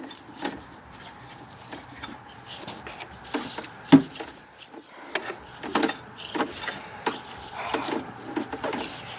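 Irregular scraping, brushing and knocking as dirt and old critter debris are swept and scooped out of a riding mower's engine compartment, with a sharper knock about four seconds in.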